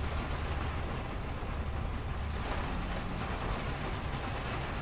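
Steady rain falling on window glass, with a constant low rumble of freeway traffic underneath.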